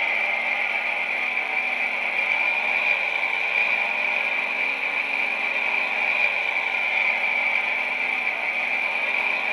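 Homemade electronic smoker running while it blows smoke out of its nozzle: a steady, fairly high-pitched rushing sound.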